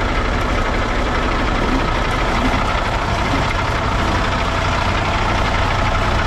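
Cummins X15 diesel of a Kenworth W900L semi truck idling steadily.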